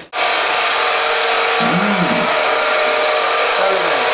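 A steady whirring machine noise with a constant hum, like a motor-driven fan or pump. It starts abruptly and stays level throughout, with a few faint gliding tones underneath.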